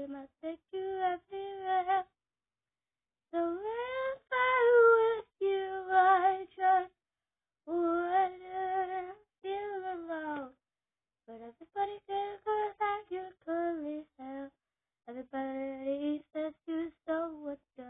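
A young girl singing a song alone, without accompaniment, in held notes with short pauses between phrases.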